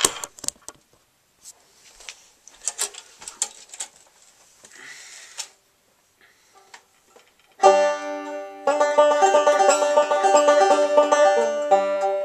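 Scattered knocks and rustling of the camera being handled, then about seven and a half seconds in a banjo starts up: a fast, steady run of picked notes.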